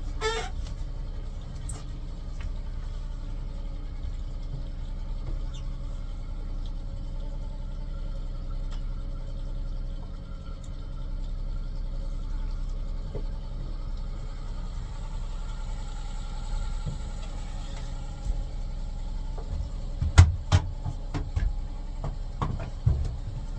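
Yamaha F30 three-cylinder four-stroke outboard idling steadily while it warms up. Near the end a few sharp knocks sound over the idle.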